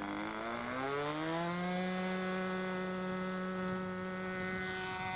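Large-scale RC Hurricane model's engine opening up for the take-off run: its pitch climbs over the first second or so, then holds steady at high revs.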